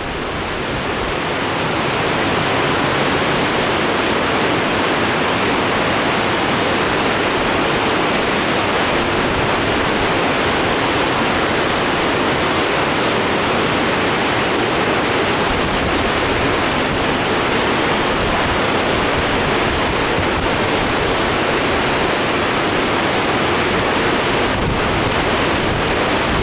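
Steady rush of a rain-swollen creek pouring over a dam and through whitewater rapids.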